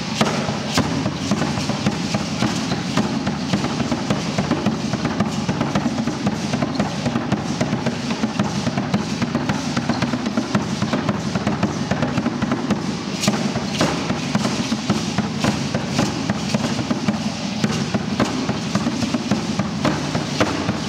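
Fast, continuous drumming for an Aztec dance, the beats packed close together with no pause.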